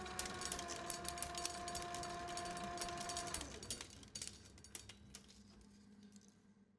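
Film reel spinning on a flatbed editing machine: a steady motor whine with a rapid crackle of clicks. The whine drops away about three and a half seconds in, leaving a low hum and scattered clicks.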